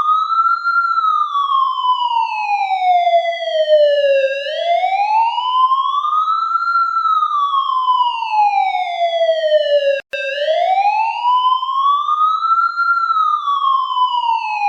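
Police siren in wail mode: a loud tone rising and falling slowly in pitch, each rise and fall taking about six seconds. About ten seconds in, it is cut by a brief click and dropout, then the wail starts again from the bottom.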